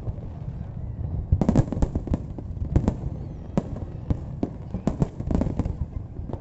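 Fireworks display going off: clusters of sharp bangs and crackles over a low rumble. A quieter lull comes first, then the bursts pick up from about a second and a half in.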